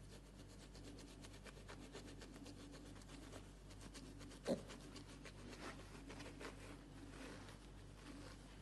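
A spiky massage ball rubbing over a piglet's bristly back, a faint, rapid scratchy rubbing. One short, sharp sound falling in pitch cuts in about four and a half seconds in.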